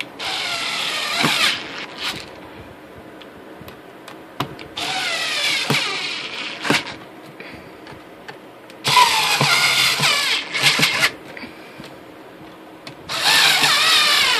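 Cordless electric screwdriver driving screws into a plastic equipment case: four short runs of motor whine, each one to two seconds, with the pitch wavering as the screw seats, and small clicks between the runs.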